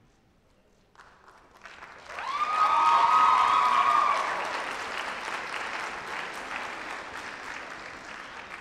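Audience applauding and cheering. It starts about a second in after a brief silence, builds quickly, includes one long, high sustained cheer near its peak, then gradually dies down.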